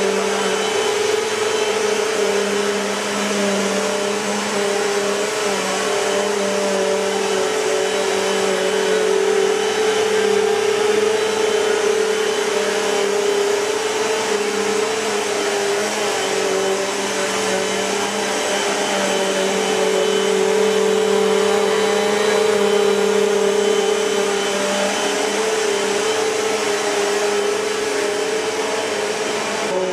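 Bissell PowerForce Compact (2112) bagless upright vacuum cleaner running steadily: a loud motor hum and whine over a rushing hiss, swelling slightly in level now and then.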